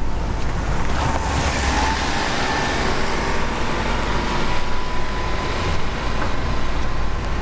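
Road traffic passing on a city street: steady hiss of tyres and engines, with a vehicle swelling past about a second in and a faint whine in the middle.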